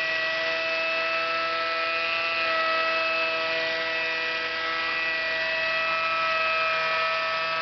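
Wet angle grinder running steadily under load, a continuous whine of several steady tones over a gritty hiss as a 400-grit pad bevels the edge of a fused glass panel.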